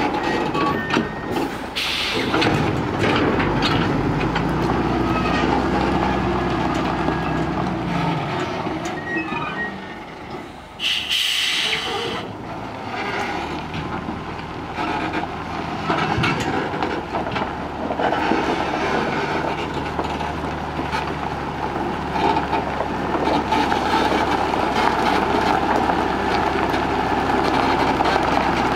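Diesel engine of a dump truck running as the truck and its full dump trailer roll slowly over gravel, with steel bodies and drawbar rattling and knocking. There is a short hiss about eleven seconds in.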